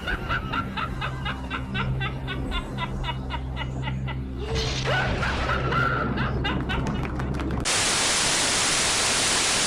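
Channel intro sting: a droning music bed with rapid pulsing notes, a snickering laugh about halfway through, then loud, even static for the last two seconds that cuts off abruptly.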